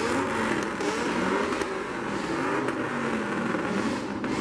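Car engines revving, the pitch repeatedly rising and falling over a steady rush of noise.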